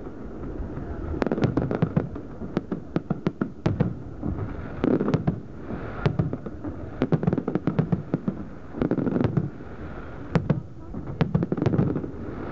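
Fireworks display: aerial shells bursting in rapid volleys of sharp bangs and crackles, with short lulls between volleys where people's voices are heard.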